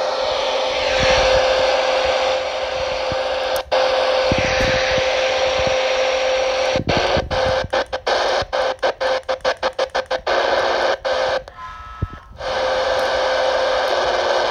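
Loud static hiss with a steady whistling tone coming through a CB radio's speaker. Midway it cuts out and back in many times in quick succession, then drops out once more briefly near the end.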